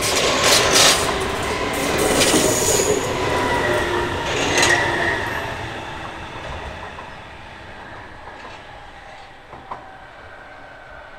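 Hamburg S-Bahn class 474 electric train passing close and running away, wheels clacking over the rail joints, with a brief high wheel squeal about four and a half seconds in. The sound fades steadily as the train draws off.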